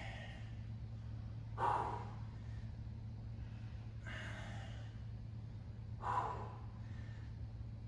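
A man breathing hard from exertion while lifting dumbbells: three heavy breaths about two seconds apart, over a steady low hum.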